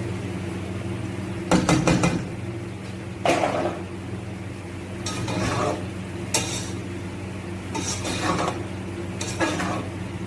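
Spatula stirring and scraping boiled rice and vegetables in a cooking pan, with irregular metal scrapes and clinks about every second or so and a quick cluster of knocks a couple of seconds in, over a steady low hum.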